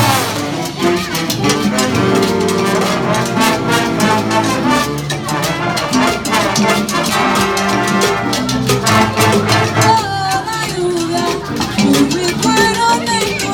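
Jazz band playing an instrumental passage of a Latin, salsa-style arrangement, with brass horns carrying the melody over a steady rhythm section.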